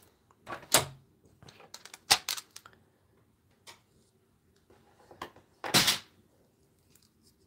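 Scissors and card stock handled on a craft desk: a few short clacks and paper rustles, the loudest and longest about six seconds in.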